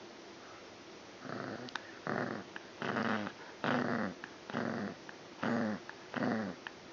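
Chihuahua puppy play-growling while mouthing a person's hand: a string of short growls, each falling in pitch, about one a second, starting about a second in.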